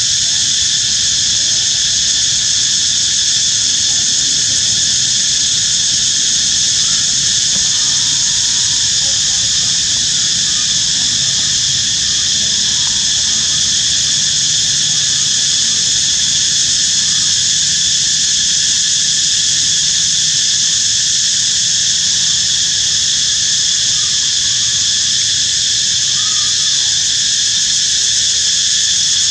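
Steady, loud chorus of insects droning without a break.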